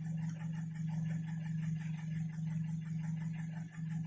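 Nissan QG18DE 1.8-litre four-cylinder petrol engine idling warm, a steady low hum with a fast, even ticking over it. The engine has a knock that its owner is chasing.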